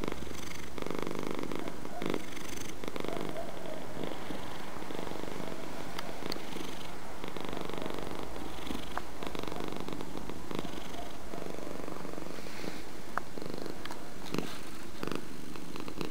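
Domestic cat purring steadily, the purr swelling and easing in a rhythm of about once a second.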